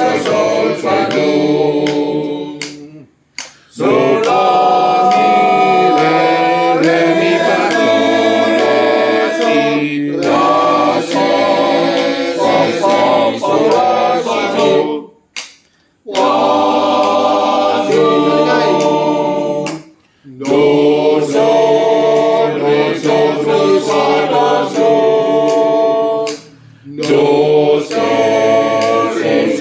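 Men's choir singing together in sung phrases, with short pauses between them four times.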